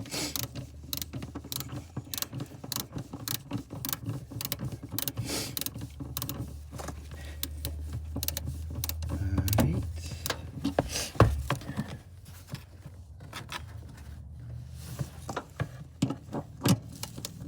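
Hand-tool work on a car's light fittings: irregular clicks, taps and small rattles of screws and parts being fitted and tightened. A low steady hum runs under them and stops about eleven seconds in.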